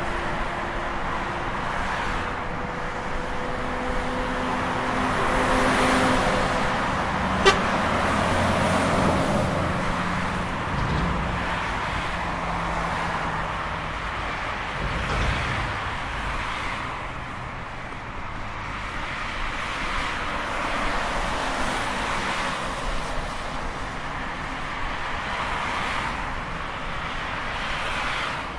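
Busy highway traffic: a steady stream of cars and trucks passing one after another, each swelling and fading. A steady tone, likely a horn, sounds for a couple of seconds about five seconds in, and a single sharp tick comes a couple of seconds later.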